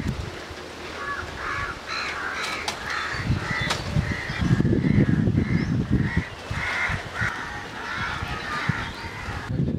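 Crows cawing over and over, short caws about two a second that keep going nearly the whole time. A low rumble swells under them around the middle.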